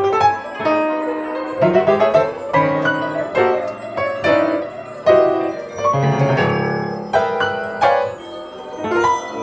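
Kawai grand piano played in a quick stream of struck notes and chords, several a second, moving between low and high registers.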